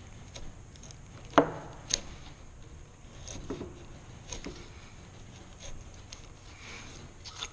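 A 3/4-inch Marples bench chisel pared by hand through the bottom of a groove in a wooden board, taking light cuts. It makes short scrapes and crunches of the blade through the wood, with a sharp knock about a second and a half in and a smaller click half a second later.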